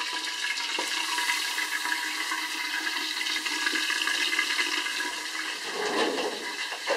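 Pork ribs sizzling steadily as they fry in an Afghan kazan, a cast-aluminium pot, with some clatter near the end.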